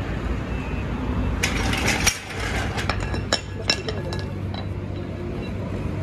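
Metal clinks and clanks from a hydraulic floor jack being lowered and pulled out from under a motorcycle. The sharpest clanks come in the middle, over a steady low background rumble.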